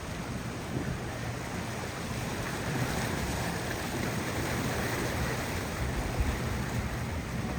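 Fast powerboat's engines running, with water rushing and heavy wind noise on the microphone.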